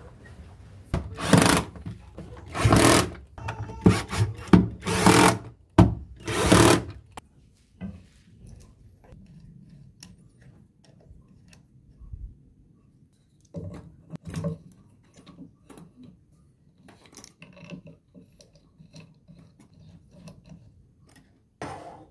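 Workshop assembly noises while a homemade jigsaw table's blade guide is fitted: a run of short, loud, rasping bursts in the first several seconds, then lighter clicks and knocks as fittings and a knob are tightened by hand.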